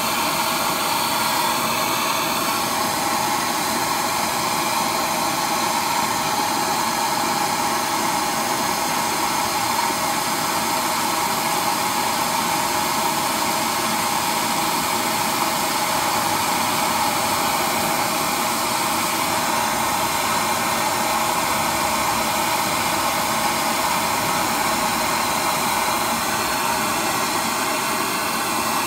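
Handheld gas torch burning with a steady hissing rush, its flame held on a seized driveshaft joint to heat it loose.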